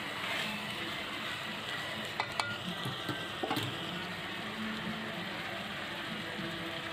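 Chicken pieces in masala sizzling as they are browned (bhuna) in a metal pot with a little water, a steady hiss with a few light clicks around two and three and a half seconds in.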